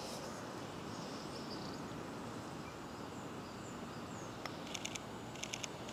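Quiet outdoor ambience: a steady low hiss with faint bird chirps and a run of high insect chirping near the end. About four and a half seconds in, a single light click of a putter striking a golf ball.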